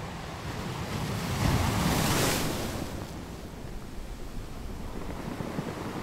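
Ocean surf: a wave breaks and washes in, swelling to its loudest about two seconds in, then falls back to a steady hiss of foam.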